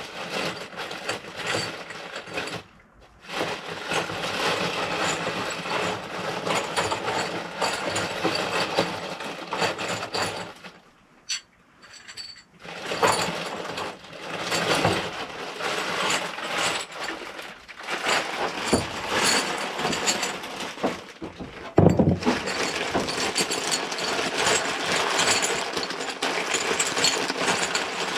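Rummaging through a bin of plumbing fittings while picking out 90-degree elbows: small parts clattering and rattling against each other, with two brief pauses.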